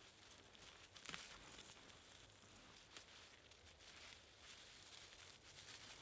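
Near silence: a faint even hiss with a couple of soft clicks.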